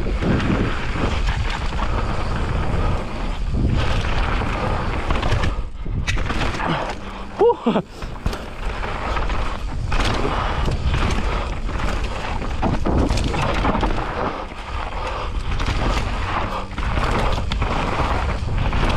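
Mountain bike riding down a dry dirt trail: a constant rush of tyre and wind noise with frequent rattles and knocks over rough ground. About seven seconds in there is a brief lull with a short squeal that rises and falls.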